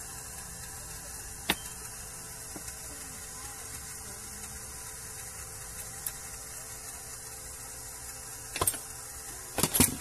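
Hands handling a stereo amplifier's chassis and front panel: a few sharp clicks and knocks, with a cluster near the end, over a steady hiss.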